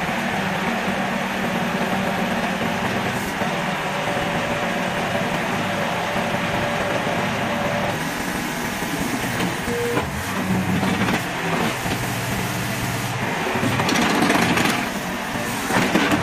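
Hitachi ZX30 mini excavator's diesel engine running steadily while the boom, arm and bucket are worked hydraulically, with louder swells near the end.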